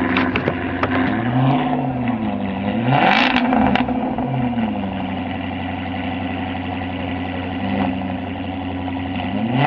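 Jaguar XKR-S's supercharged 5.0-litre V8 revved through its exhaust. Several blips of the throttle in the first half send the revs rising and falling, with a few sharp crackles. It then settles to a steady idle, with one small blip near the end.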